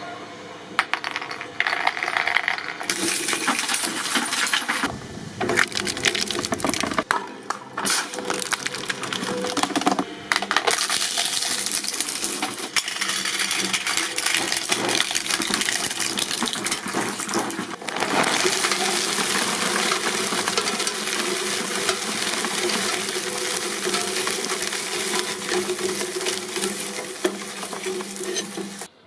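Press machine crushing objects: dense crackling and metallic clinking, changing abruptly every few seconds as clips are cut together.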